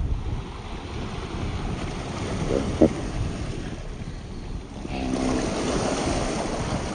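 Wind buffeting the microphone over waves washing against a rocky shore, a steady low rumble, with a brief pitched sound a little under three seconds in.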